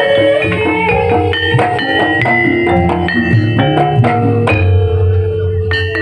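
Javanese gamelan music: tuned metallophones play a quick run of ringing notes over sharp drum strokes.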